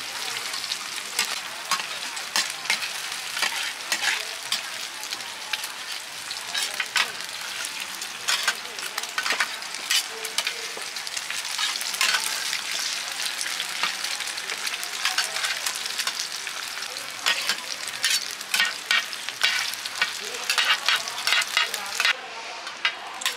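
Mussel omelettes sizzling in hot oil on a large round flat griddle pan, with metal spatulas scraping and clacking against the pan again and again.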